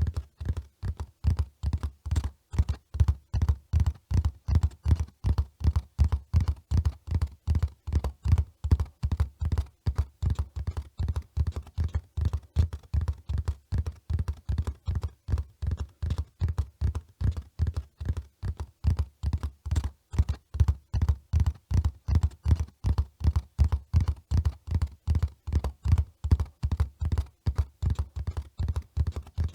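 Horse hoofbeats at a run: a steady, unbroken rhythm of dull, low thuds, about four a second.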